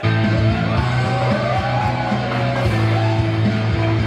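Music cuts in abruptly, with a heavy, steady bass line and a melody arching over it.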